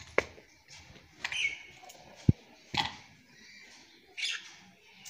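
Split firewood log pieces knocked and set down on a concrete floor: a few sharp wooden knocks, with one dull thud about two seconds in. Short bird calls chirp in between.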